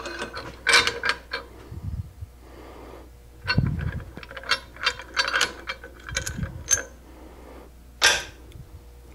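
Steel lathe parts being handled and fitted: the banjo keeper and bolt clink, tap and scrape against the cast banjo and bedways in a string of sharp metallic clicks, with a few dull thuds, over a faint steady hum.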